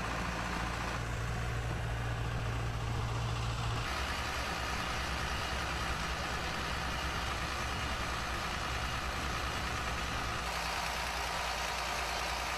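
Engine-driven portable flood pumps running steadily, with water rushing out of their discharge pipes. The engine hum shifts in pitch and level a few times, about a second in, about four seconds in and near the end.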